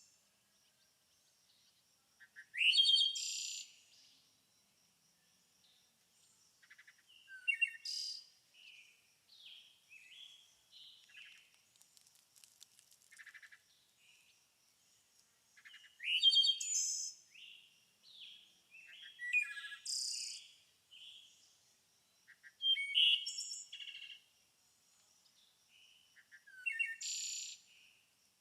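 Songbirds singing and chirping in short, bright phrases every few seconds, with quieter gaps between.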